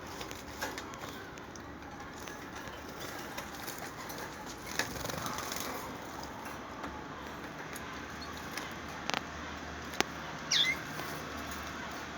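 Small pet birds fluttering their wings, with a few sharp taps and a short falling chirp near the end.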